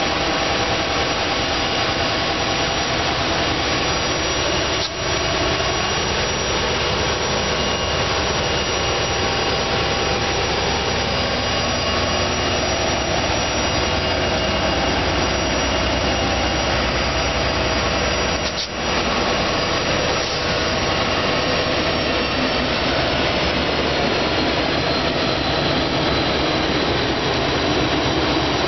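EMD diesel freight locomotives running with a loud, steady engine sound carrying several high steady tones. The sound drops out briefly twice, about 5 s and 19 s in.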